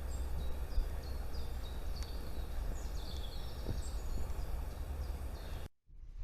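Small birds singing, a series of short high chirps and down-slurred notes, over a steady rushing background noise with a low rumble. The sound cuts off abruptly about five and a half seconds in.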